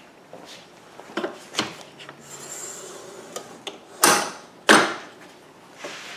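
Light clicks and knocks from a miter saw and its plywood fixture being handled, with wood set against it. Two louder, sudden knocks come about four seconds in and again half a second later.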